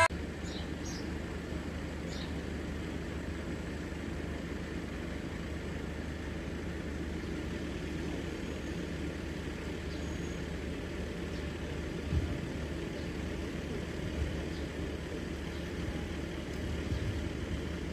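Steady low hum of idling road traffic, with two brief low thumps about twelve and fourteen seconds in.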